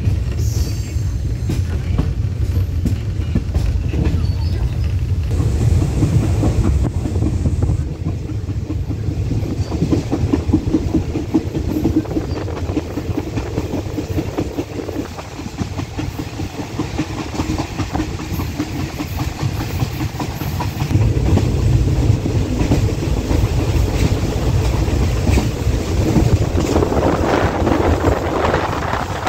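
Passenger train running along the line, heard from inside the carriage: a steady rumble of wheels on rail with rattling and clickety-clack. The rumble eases through the middle and grows louder again near the end.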